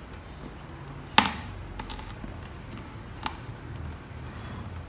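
Sharp clicks and snaps of a small screwdriver prying at a scooter's glued plastic headlight housing: one loud click about a second in, then two fainter ones, over a low steady hum.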